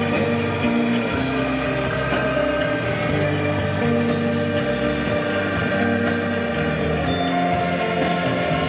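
Background music with guitar, held notes and chords.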